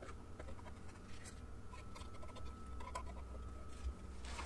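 Faint scratching and light ticking of a scraper working softened chemical stripper and old finish off a veneered wooden drawer front, with one louder scrape near the end.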